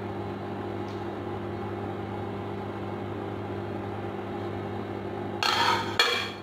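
Steady electrical hum of an induction cooktop running under a pot of simmering curry. Near the end, a stainless-steel lid is put on the steel pot with two loud metal clatters.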